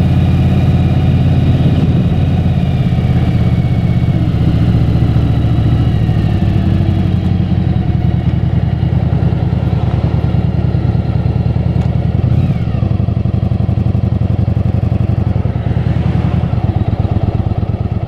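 Motorcycle engine running steadily while riding slowly in town traffic, heard from on the bike.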